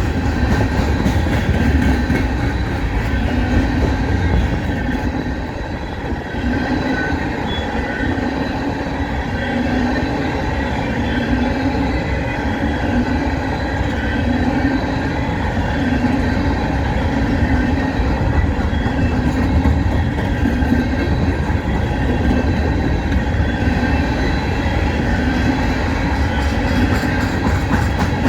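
A CSX freight train of empty coal cars rolling steadily past: a continuous rumble of steel wheels on rail with a regular clatter, and a faint high wheel squeal.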